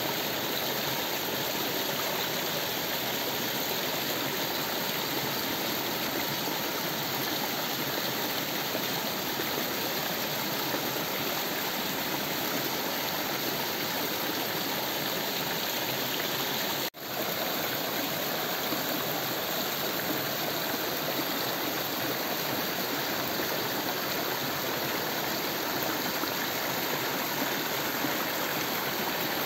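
Small waterfall: a thin stream of water running down a rock face and splashing onto the stones below, a steady rushing hiss. The sound cuts out for an instant about halfway through.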